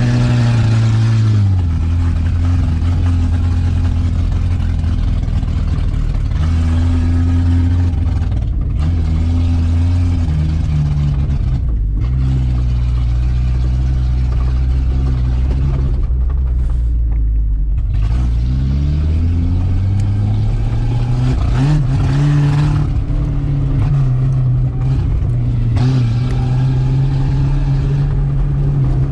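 Modified Dacia 1310's four-cylinder petrol engine heard from inside the cabin while driving, its pitch dropping and climbing as it is shifted through the gears and accelerated again.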